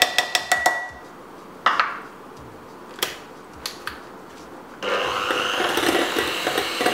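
A quick run of taps as a plastic cup is knocked against a glass mixing bowl and beaters, a few separate knocks, then about five seconds in an electric hand mixer switches on and runs steadily, beating flour into a creamed butter-and-sugar paste.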